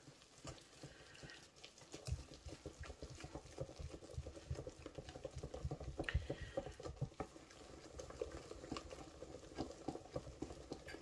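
Wire whisk working a thick flour-and-milk mixture in a stainless steel bowl: faint, quick, irregular clicking and scraping that starts about two seconds in.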